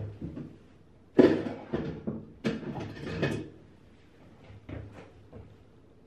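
Handling noise: a handful of knocks and bumps with rustling between them in the first three and a half seconds, the loudest a little over a second in, then a few faint rustles as things settle.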